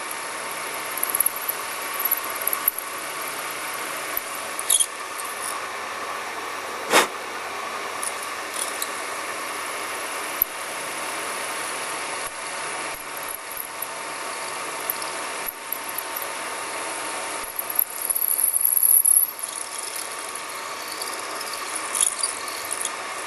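Milling machine running with a 4 mm drill bit cutting into an airgun receiver block, a steady machine whine with squeals from the bit in the metal. There is a sharp tick about seven seconds in and a louder high squeal around eighteen seconds in.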